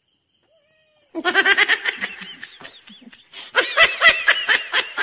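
A woman laughing hard in quick, rapid bursts. The laughing starts about a second in, eases briefly, then comes back louder at about three and a half seconds.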